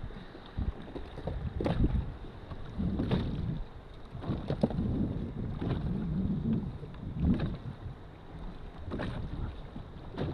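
Wind buffeting the microphone on a kayak, with water splashing and sloshing about every second or two.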